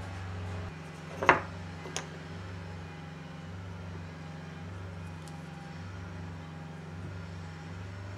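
A steady low electric hum, with a sharp knock about a second in and a lighter one just after.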